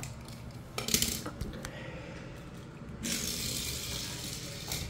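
Toys and packaging being handled and moved across a tile floor: a few clicks and knocks in the first two seconds, then a steady rushing hiss for the last two seconds or so.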